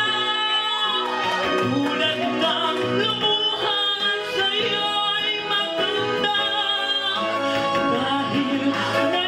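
A woman singing into a microphone through a PA over instrumental accompaniment, holding long notes that waver in pitch.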